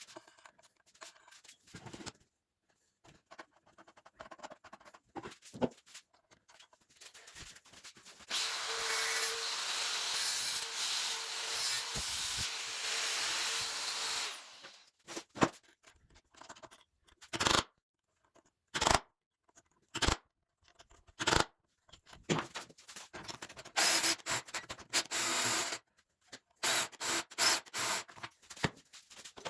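Sanding wood in a workshop: about six seconds of steady sanding noise with a faint steady whine in the middle, then several separate sharp knocks and short bursts of rubbing near the end.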